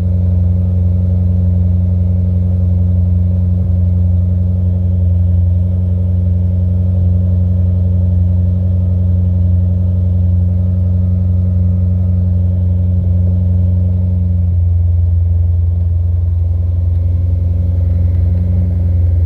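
Jaguar XF's engine idling steadily with a deep, even hum. The idle note shifts slightly about three quarters of the way through.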